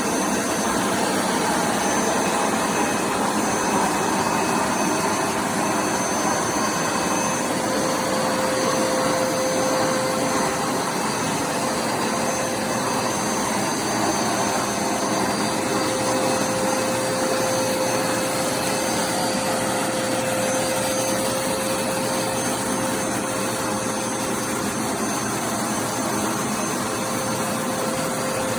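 Hoover SmartWash carpet cleaner running, its suction motor giving a loud, steady whir with a constant whine.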